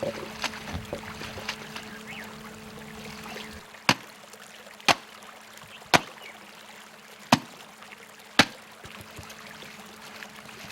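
Wet clothes being slapped against a washing stone by hand, five sharp slaps about a second apart, over the trickle and splash of flowing river water. A steady low hum stops about three and a half seconds in.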